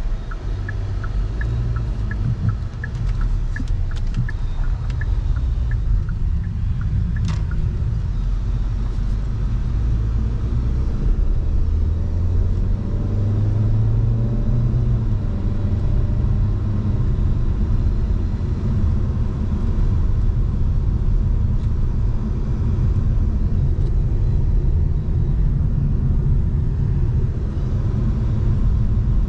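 Car driving slowly, a steady low rumble of engine and tyres. In the first few seconds there is a run of quick, light, evenly spaced ticks.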